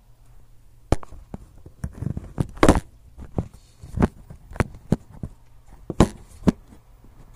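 A dozen or so irregular knocks and thumps, close and sharp, the loudest about two and a half seconds in: handling noise from the camera being gripped and bumped.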